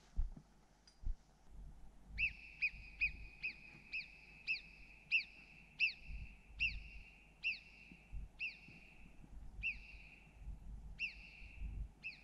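Alpine marmot alarm whistles: a series of about fourteen sharp, downward-sweeping whistles starting about two seconds in. They come about two a second at first, then slow to about one a second. Faint low thuds sound underneath.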